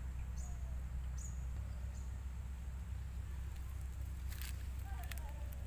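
Steady low rumble with a few faint, short high chirps, and a brief rush of noise about four and a half seconds in.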